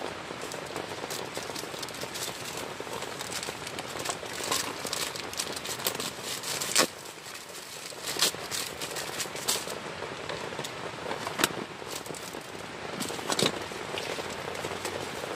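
Heavy rain falling steadily on a tent, with scattered sharp taps and clicks throughout.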